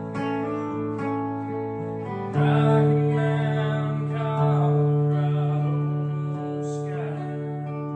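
Music: a strummed acoustic guitar playing chords, with a singing voice joining about two and a half seconds in.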